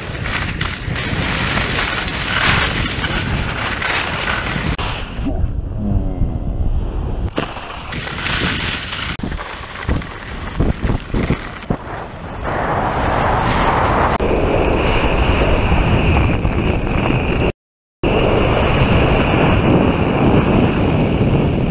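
Wind buffeting an action camera's microphone and skis scraping over snow during fast downhill runs. The noise changes abruptly several times where shots are cut together, with a short silent gap a few seconds before the end.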